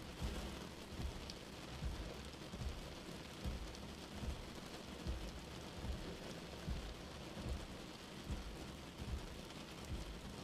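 Steady rain on a car windscreen with the windscreen wipers sweeping slowly, a low thump coming with each stroke, about one every second.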